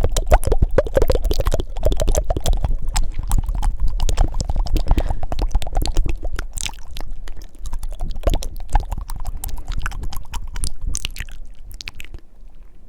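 Fast, wet ASMR mouth sounds close to the microphone: rapid tongue flutters and clicks, dense at first and thinning out toward the end.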